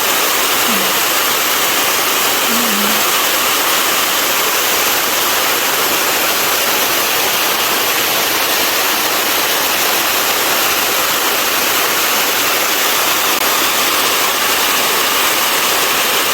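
Rushing water of a fast-flowing mountain stream and its cascades, a steady, even roar. The stream is running high and strong after typhoon rains.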